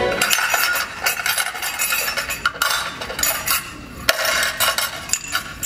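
Dishes and cutlery clinking and clattering as they are handled on a table, in quick irregular knocks.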